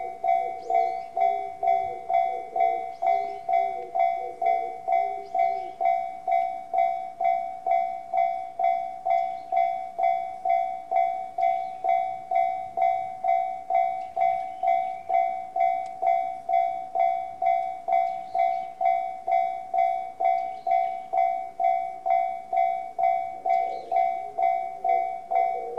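Japanese railway level-crossing alarm ringing with the JR standard electronic bell tone, an even ding repeating about twice a second: the crossing is warning of a train.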